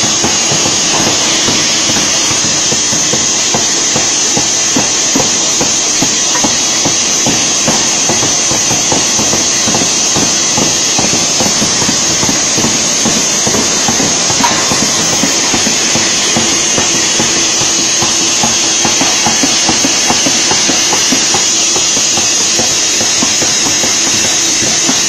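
Pneumatic forging hammer striking red-hot steel in a rapid, continuous run of blows, over a steady hiss and a high whine from the forge machinery.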